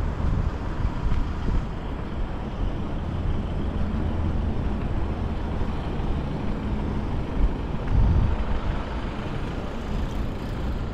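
Road traffic passing close by, with a heavy vehicle's engine droning low through the middle and tyre and road rumble throughout.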